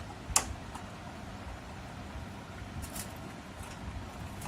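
A DDR3 memory stick being pressed into its motherboard slot: one sharp click about a third of a second in, then a faint tick and a softer knock near the end, over a low steady hum.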